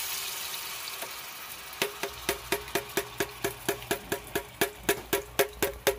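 Chile sauce sizzling as it is strained into a hot skillet, a hiss that fades over the first two seconds. Then background music with a fast, even wood-block-like beat, about five ticks a second, comes in about two seconds in.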